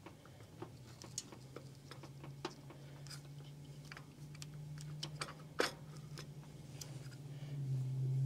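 Scattered light clicks and taps of a distributor being turned and worked down into a Cadillac 472 V8 block, its gear meshing as it seats. A low steady hum runs underneath and grows louder near the end.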